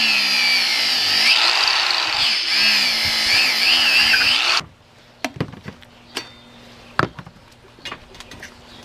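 Angle grinder with a cutoff wheel cutting through an old motorcycle tire's rubber and steel bead. Its whine dips and rises in pitch as the wheel loads up in the cut, then cuts off abruptly about four and a half seconds in. A few light knocks follow.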